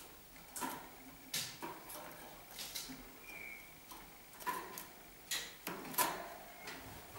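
Harzer Roller canaries in wire breeding cages: irregular sharp clicks and taps, about a dozen, with one short high chirp about three seconds in.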